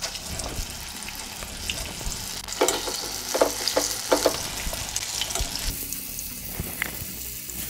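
Flour-coated herring pieces sizzling as they are laid into hot vegetable oil in a frying pan. A few short knocks come about three to four seconds in as more pieces go down into the pan.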